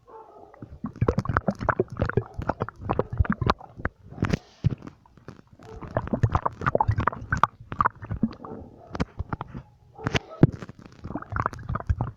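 A person's stomach growling: a rapid, irregular run of rumbles and gurgles, with brief lulls about 4 and 10 seconds in.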